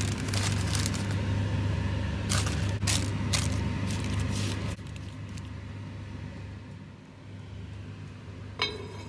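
Parchment paper crinkling and rustling as it is pressed down into an enamelled cast-iron pot, over a steady low hum. Near the end the pot's cast-iron lid is set on with a single clink.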